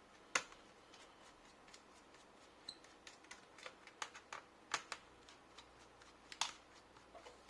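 A few scattered, sharp clicks and taps of a small screwdriver working loose the screws that hold the laptop's hard drive in its bay, the loudest about half a second in and near the middle.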